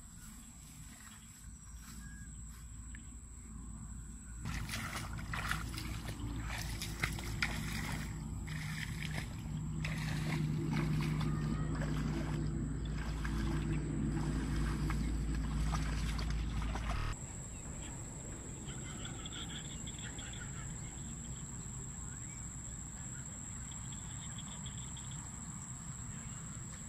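Water splashing and sloshing as a person wades through a shallow, grassy flooded field, with wind rumbling on the microphone. About 17 s in the splashing cuts off, leaving quieter open-field ambience with a steady high-pitched tone and a few faint chirps.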